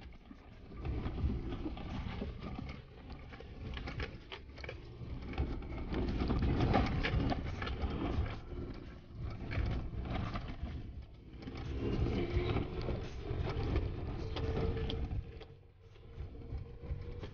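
Suzuki Jimny kei four-wheel drive driving slowly along a rough dirt forest track, heard from inside the cabin: a low engine and road rumble with frequent knocks and rattles as it bumps over the uneven surface.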